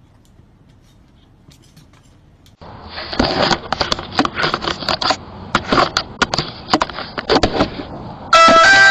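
An animal pawing and scratching at a video doorbell close to its microphone: a quick, irregular run of scrapes and taps. Near the end the doorbell's electronic chime rings out, several notes in turn.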